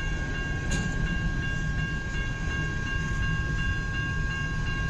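Freight cars of a long CN train rolling past, a steady rumble of wheels on rail. Steady high-pitched tones, one of them pulsing, sound over it.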